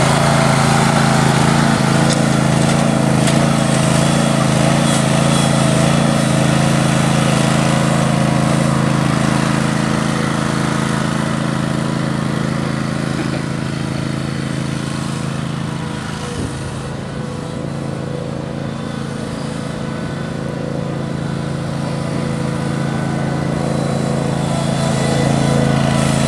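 Engine of a Toro Sand Pro bunker rake running steadily while it drags its rake through the sand. It fades somewhat in the middle as the machine moves off across the bunker and grows louder again near the end as it comes back.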